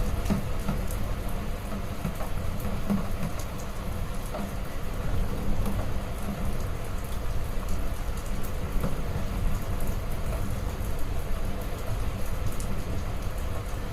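Heavy rain pouring steadily, with a dense patter of drops over a deep low rumble.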